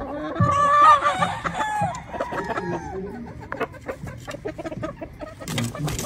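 A hennie gamefowl rooster crows once, a drawn-out call of about two seconds, loudest about a second in. Scattered clucking follows, and near the end there is a quick burst of wing flapping.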